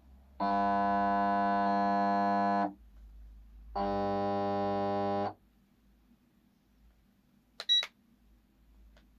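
Electronic buzzer sounding two long steady tones, the first about two seconds long and the second about a second and a half, then a short, higher-pitched double beep a couple of seconds later.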